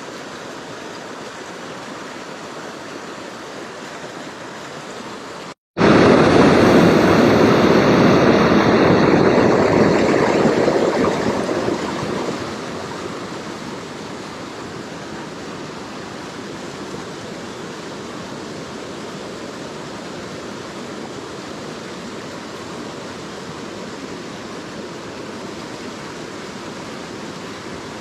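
Steady rushing of water in a small hill stream. About six seconds in, the sound cuts to a much louder rush that fades back down over the next six seconds or so, then runs steadily again.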